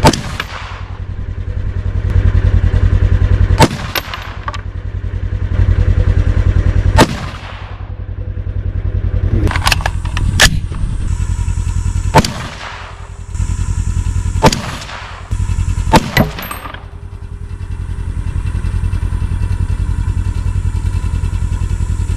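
Single rifle shots from a 22 ARC AR-15-pattern rifle, fired a few seconds apart, each sharp crack trailing off in an echo, ending about three-quarters of the way through. A steady low rumble runs underneath throughout.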